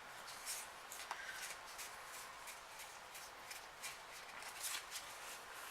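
Faint rustling and light ticks of Pokémon trading cards and booster packs being handled, in short scattered bits.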